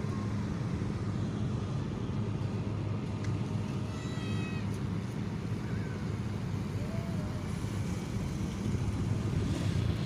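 Excavator's diesel engine running steadily. About four seconds in, a brief high-pitched cry rises over it.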